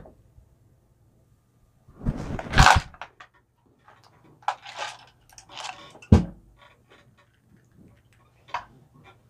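Handling noises from small plastic toys and a plastic playset being moved about on a fleece blanket: scattered rustles, scrapes and knocks, the loudest a rustling scrape about two seconds in and a sharp click about six seconds in.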